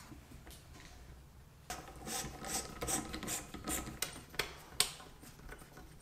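Ratchet wrench clicking, starting about two seconds in with a run of quick repeated strokes and ending with a few single clicks, as a small cap on the engine is tightened.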